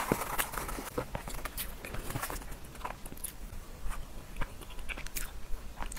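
Scattered small clicks and crackles as a metal spoon scrapes into a cocoa-dusted chocolate cake in a paper box, along with handling of the box.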